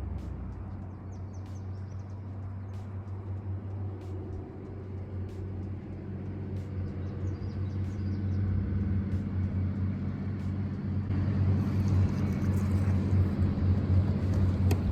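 Boat motor running with a steady low hum that grows louder toward the end, with faint ticks roughly every second and a half.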